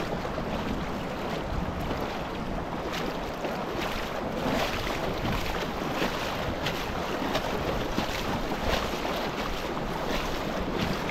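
Steady rush of water with irregular splashes and wind buffeting the microphone.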